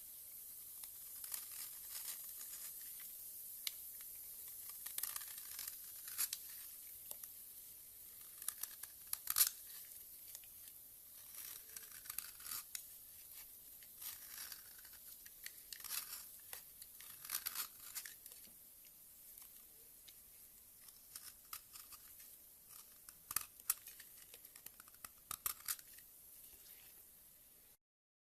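Hands squishing and poking slime: irregular sticky crackles and pops over a faint hiss, cutting off abruptly near the end.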